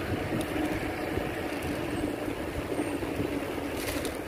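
Steady road and wind noise from moving along a city street, with a low steady hum underneath and a brief click near the end.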